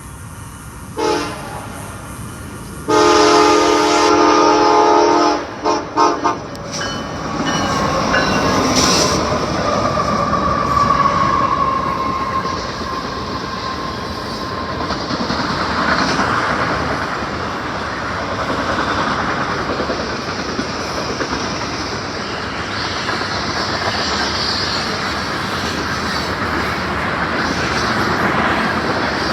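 Train air horn sounding a short blast, then a long blast and a few quick toots. The train then passes close by with a steady rumble of wheels on rails, and a thin whine falls in pitch about ten seconds in.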